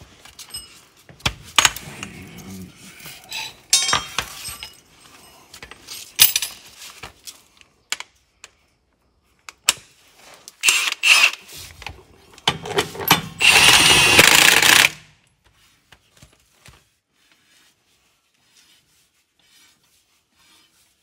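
Metal clinks and knocks of the gauge wheel being handled onto a John Deere drill opener, then a cordless impact wrench runs twice, briefly and then for about two seconds, driving the gauge wheel's mounting bolt home.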